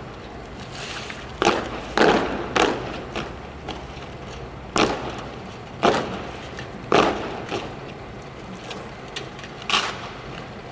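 Sharp, crisp claps and thuds, about seven of them at irregular intervals, from a guard drill squad moving in unison: M1 rifles slapped and handled in silent drill and boots striking the stone paving.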